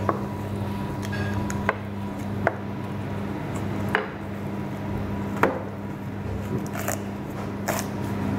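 A butcher's knife cutting raw lamb on a plastic cutting board, with about five sharp, irregularly spaced knocks as the blade strikes the board and a few fainter ones near the end. A steady low hum runs underneath.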